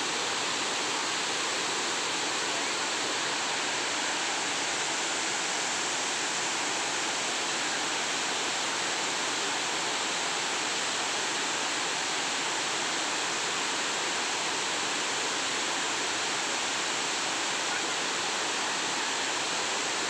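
Waterfall: a steady, even rush of falling and splashing water.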